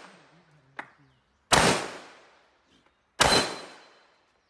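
Two rifle shots about a second and a half apart, each sharp and loud and dying away over about a second of echo.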